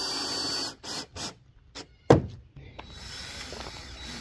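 Cordless drill/driver running with a high whine, stopping just under a second in, followed by two short pulses and a sharp knock about two seconds in; the driver then runs again more quietly from about three seconds, working fasteners at the car's hood.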